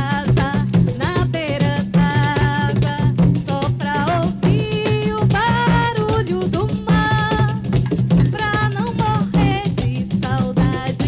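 Live Brazilian music: a steady, rhythmic drum-and-percussion groove with a wavering melodic line, sung or played, over it.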